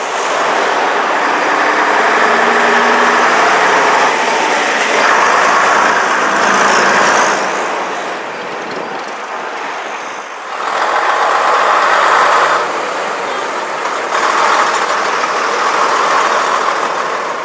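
Diesel engines of vintage London double-decker buses running at a stop and pulling away close by, along with street traffic noise. The level swells and falls several times as the buses move.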